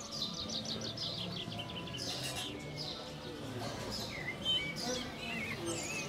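Songbirds singing: a fast run of high, repeated chirps in the first couple of seconds, then varied warbling phrases, over low steady tones.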